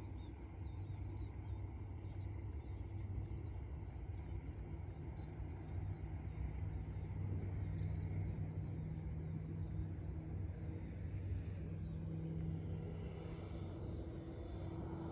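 Distant drone of a single-engine propeller aircraft on approach: a steady low hum that grows stronger about four seconds in. Repeated short, high chirps of small birds run over it.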